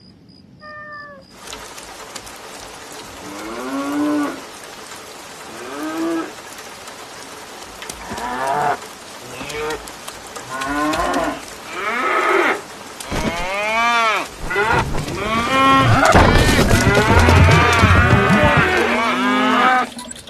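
An animal calling over and over, each call a pitched cry that rises and then falls. The calls come about every two seconds at first, then crowd together and get louder near the end.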